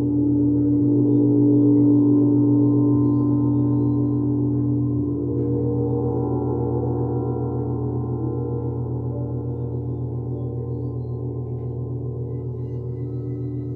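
Frosted quartz crystal singing bowls ringing together in long sustained tones, a strong mid tone over a low hum with several higher tones. The sound waves gently, a few slow pulses a second, in the second half.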